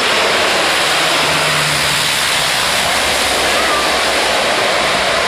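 Canadair amphibious water bomber passing low overhead and heading down to the sea, its two propeller engines running loud and steady under a dense rushing noise.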